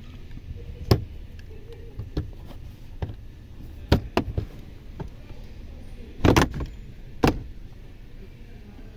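Plastic lower dashboard trim of a 2019 Toyota Corolla being pried and pulled loose: a series of sharp plastic clicks and knocks as the retaining clips give. The loudest is a quick cluster of cracks about six seconds in, with another loud knock about a second later.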